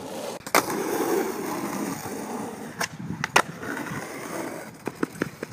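Skateboard wheels rolling on pavement, with three sharp loud clacks and a quick run of smaller ticks near the end.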